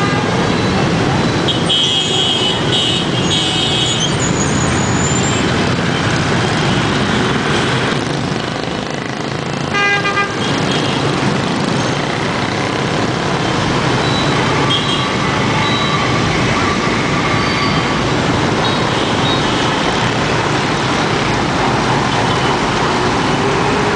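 Dense city traffic, mostly motorbike and car engines, running steadily with horns tooting several times: a longer horn about two seconds in and a short beep about ten seconds in. Near the end a garbage compactor truck passes close, its engine note rising.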